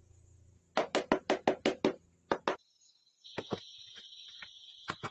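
A quick, even run of about eight sharp knocks, roughly five a second, followed after a short pause by a steady high-pitched buzz with a few scattered clicks.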